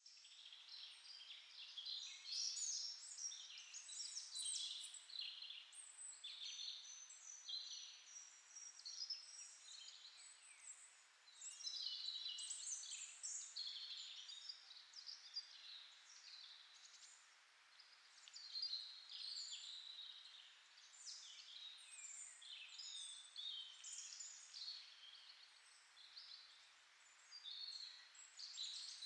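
A chorus of many small birds chirping and trilling at once, high-pitched and unbroken, with no music.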